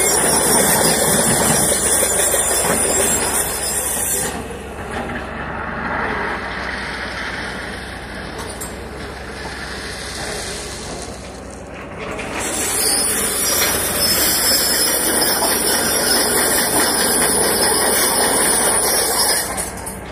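Loud hissing rush in two long spells, about four seconds at the start and again from about twelve seconds in until near the end, over a continuous low rumble of heavy tracked excavators working on a railway line.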